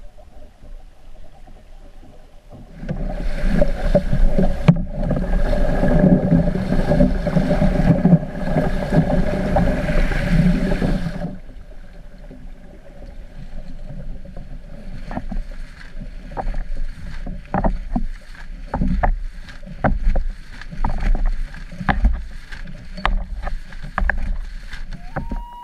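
Lake water slapping and splashing against the hulls of rafted open canoes running downwind in a chop, in irregular knocks that come more often toward the end. From about three seconds in to about eleven seconds there is a louder steady drone of fixed pitch over the water noise.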